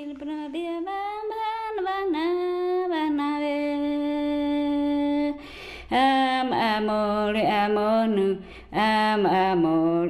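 A woman's voice singing a slow melody, with one long held note in the middle. After a short break about halfway through, the singing resumes on lower notes.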